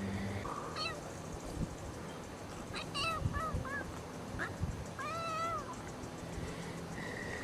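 Kitten meowing in short, high-pitched calls: one about a second in, a quick run of several around three seconds in, and a longer call that rises and falls a little after five seconds.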